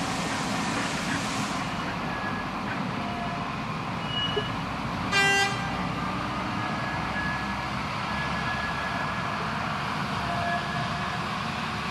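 Small diesel locomotive on a narrow-gauge sugar cane tramway running at low speed, with one short toot of its horn about five seconds in.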